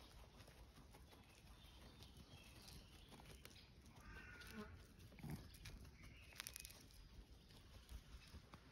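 Near silence: a faint low background with a few soft clicks, and a brief faint animal sound about five seconds in, from a tabby cat licking and grooming a puppy.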